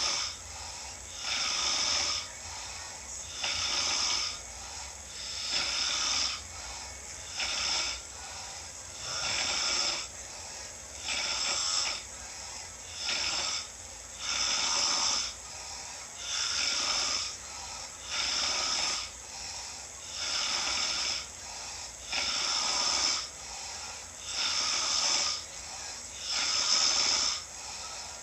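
A person snoring in a steady rhythm, one noisy breath about every two seconds.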